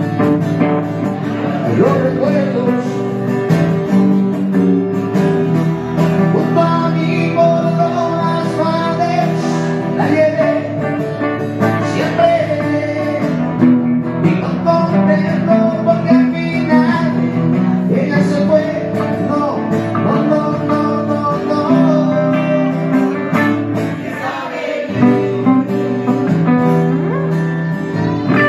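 Live acoustic rock music, guitars playing a continuous passage with melody lines over steady chords.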